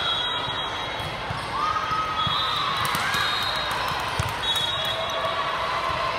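Volleyballs thumping on the court floor and off players' arms, several times, over steady background chatter, with occasional thin high squeaks.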